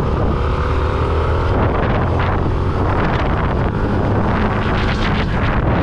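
Motorcycle engine running under way, with wind rushing and buffeting the microphone in repeated gusts.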